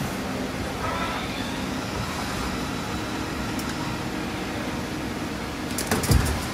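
Doosan Puma 240MS CNC turning center running a cycle: the steady hum of its motors and pumps, with a brief whine as an axis travels about a second in. A sharp clatter of knocks with a low thud near the end is the loudest sound, as the turret or subspindle moves and clamps.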